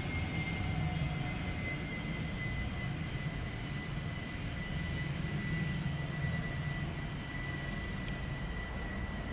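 Milling machine running steadily through a cut, enlarging a hole in a steel tooling plate, with a constant high-pitched whine over a low hum. Two faint clicks about eight seconds in.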